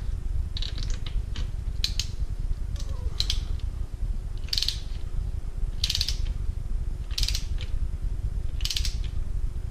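Ratchet of a click-type torque wrench, set to 13 ft-lb, clicking in short bursts about every second or so as the handle is swung back and forth to run a spark plug down into the cylinder head, over a steady low hum.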